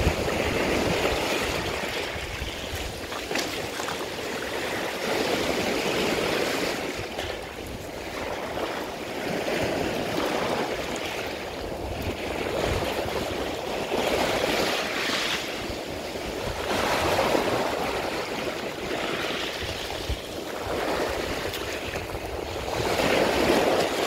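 Sea waves washing onto a beach of small shells and pebbles, swelling and falling back every few seconds.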